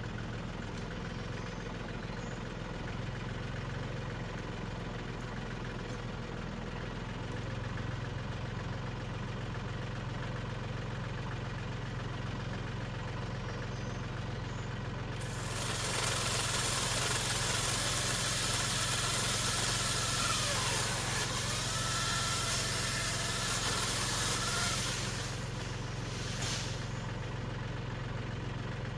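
Tractor engine running steadily, a little louder after about seven seconds. For about ten seconds past the middle a loud hiss with faint whistling tones covers it, then stops.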